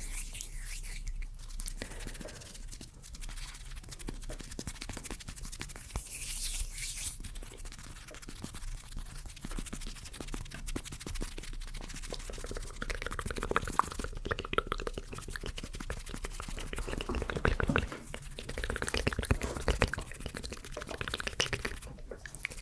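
Close-miked ASMR mouth sounds and hand sounds: a dense run of soft wet clicks and crackles, busier in the second half.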